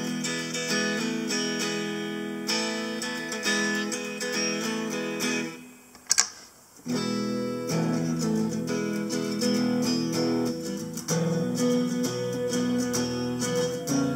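Guitar played through a Harley Benton DNAfx GiT multi-effects unit, picked notes and strummed chords in a clean, acoustic-like tone. About five and a half seconds in the playing stops, a single short click is heard, and about a second later the playing resumes.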